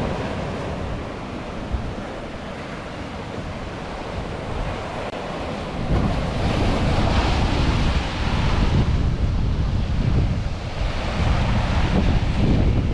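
Sea waves surging and washing against shore rocks, twice swelling louder, about midway and near the end, with wind rumbling on the microphone throughout.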